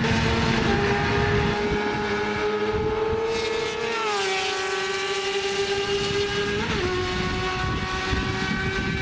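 Yamaha YZF-R6 sport bike's inline-four engine running at high revs out on the track, a steady high-pitched note. Its pitch drops about four seconds in and dips briefly near seven seconds.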